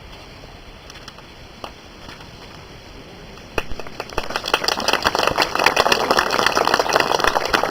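A crowd applauding. The clapping starts suddenly about three and a half seconds in and swells into steady applause.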